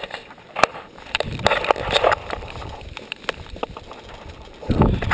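Rustling, crackling and knocking of gloves and clothing being handled close to the microphone, with a louder low rumble starting near the end.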